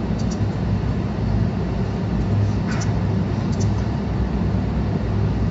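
Steady low rumble and hum of background noise, with a few faint high ticks.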